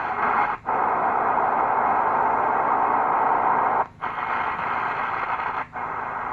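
Shortwave static hiss from a Tecsun PL-330 radio's speaker, cutting out briefly three times as the radio steps between stored frequencies.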